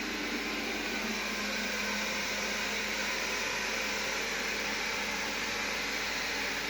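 Xiaomi Mijia LDS robot vacuum (MJST1S) running with a steady, even whir.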